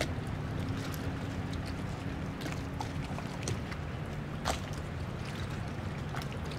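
A steady low engine hum with a few small scattered clicks and knocks.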